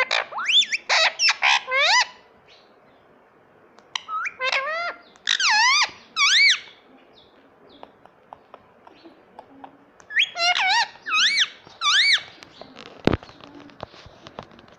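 Indian ringneck parakeet chirping in three bursts of quick, repeated notes, each note sweeping up then down in pitch. A single sharp click comes near the end.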